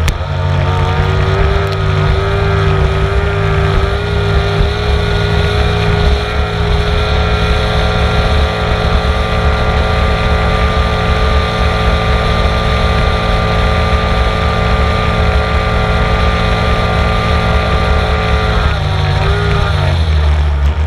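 Onboard sound of a racing powerboat engine running hard at steady high revs, with a heavy low rumble under it. Near the end the pitch drops as the throttle eases, then starts to climb again.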